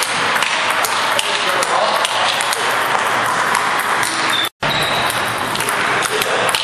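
Table tennis balls being struck by rubber paddles and bouncing on the table in fast rallies: a quick run of sharp clicks over the din of a busy hall. The sound drops out briefly about four and a half seconds in.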